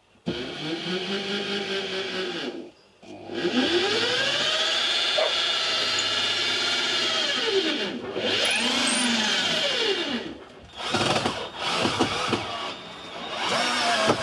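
Cordless drill running into a wooden batten frame in several runs, its motor whine rising and falling in pitch as the trigger is squeezed and the bit takes load, with short stop-start bursts near the end.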